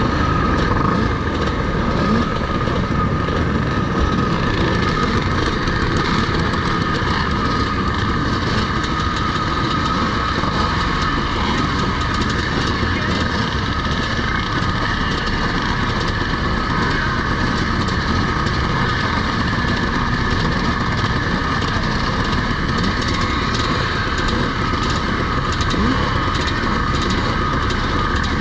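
Many vintage motocross motorcycle engines running together, a dense steady drone that holds much the same pitch and loudness throughout.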